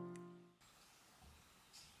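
A held chord of background music, fading and then cutting off about half a second in, followed by near silence.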